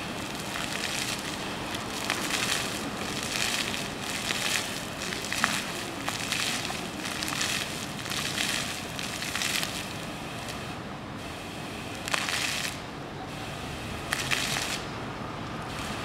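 Water jets of a ground-level splash-pad fountain spraying up and pattering back onto the paving, with a hissing splash. The splash swells and fades in waves and drops away briefly several times near the end as the jets change.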